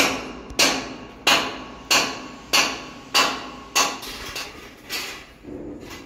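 A hammer striking steel in a steady rhythm, about one and a half blows a second, each blow ringing briefly. The blows grow weaker after about four seconds.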